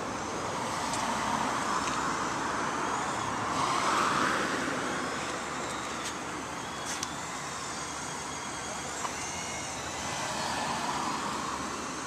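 Street traffic: passing cars, swelling and fading, one about four seconds in and another near the end, over a steady traffic hum.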